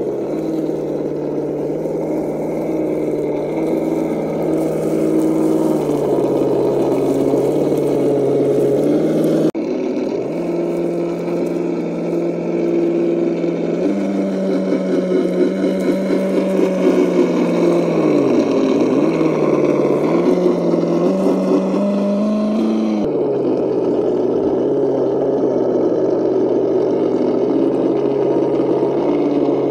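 Electric motor and gear drivetrain of an Axial Defender scale RC crawler whining as it drives. The pitch holds, then steps up and down with the throttle, and drops sharply and climbs back once near the middle. The sound cuts abruptly twice.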